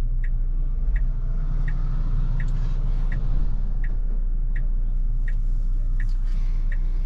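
A box truck passing close in front of a parked car, its low rumble swelling in the middle, over a regular ticking of about three ticks every two seconds.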